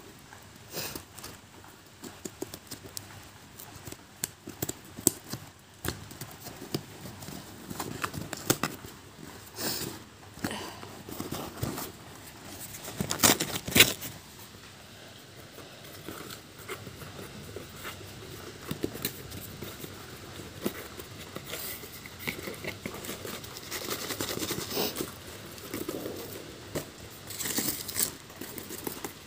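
A cardboard parcel being cut open with scissors and torn apart by hand: scattered snips, rips and scrapes of cardboard, loudest about halfway through. Near the end, plastic wrapping crinkles as the products are handled.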